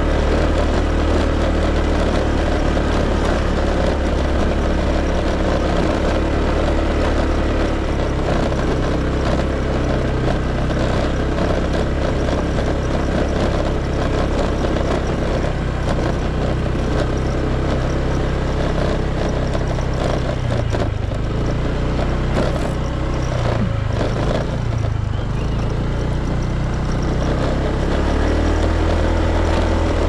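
Scooter engine running under way, its note steady for most of the time, then shifting and wavering in pitch for several seconds past the middle before settling again near the end.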